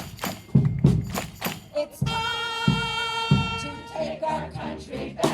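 Live choir music at the close of a song: beats about three a second for the first two seconds, then a long held note, then voices again.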